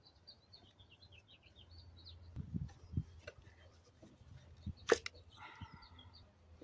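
Small birds chirping in quick runs during the first couple of seconds, then a few dull knocks and one sharp click about five seconds in.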